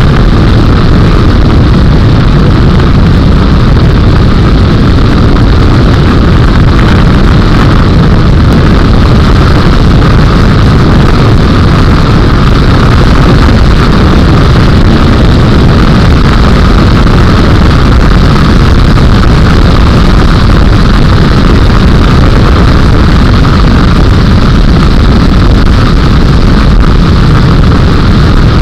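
Light homebuilt Bush Caddy airplane's engine and propeller running steadily in flight, a loud, constant drone with rushing air and no change in power.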